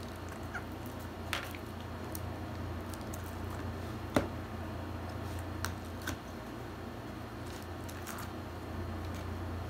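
Soft slime being squeezed and poked by hand, with a few sharp clicks, the loudest about four seconds in, over a steady low hum.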